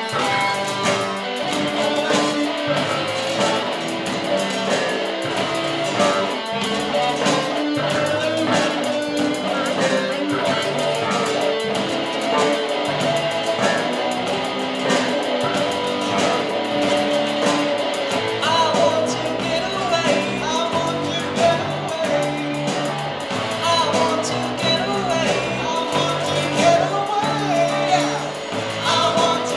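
A live rock song from a student band: a row of acoustic guitars strumming along with electric guitar and bass. Young male voices sing over it, mostly in the second half.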